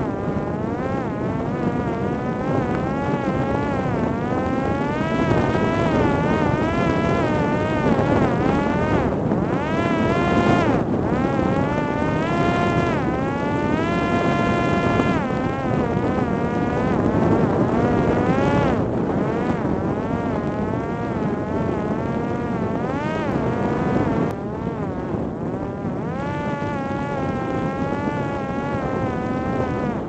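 Parrot Disco drone's electric motor and pusher propeller whining in flight, the pitch rising and falling continually with the throttle, over a steady rush of wind.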